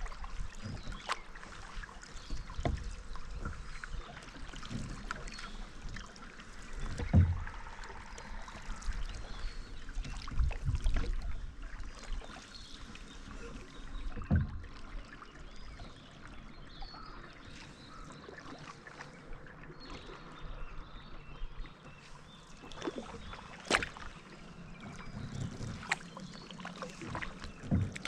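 Canoe being paddled: paddle strokes dipping into the water with trickling drips, broken by occasional sharp knocks.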